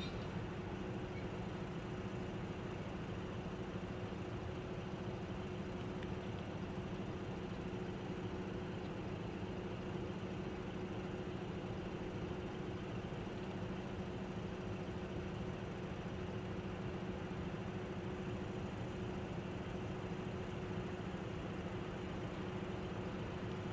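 Diesel engines of two coupled shunting locomotives running at idle, a steady drone that holds the same pitch throughout.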